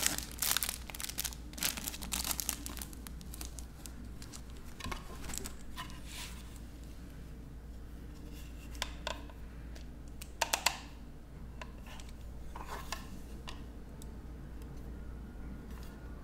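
Packaging crinkled and rustled by hand in a dense run of crackles over the first three seconds, then sparser rustles, with two sharp clicks about ten and a half seconds in. A steady low hum runs underneath.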